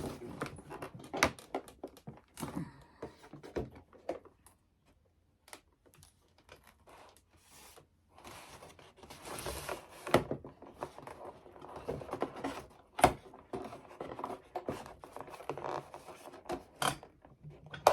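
Handling noise from a foam-board box and its glued-on hinges: irregular clicks, taps and scrapes, with a quiet pause in the middle and a few sharper knocks later on.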